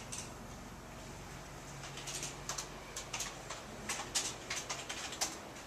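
Computer keyboard typing: irregular runs of key clicks starting about two seconds in, over a steady low room hum.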